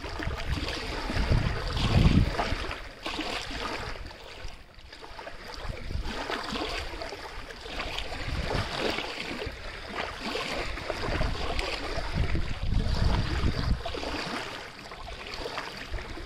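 Running water: a continuous rushing and splashing, with a few heavier low surges.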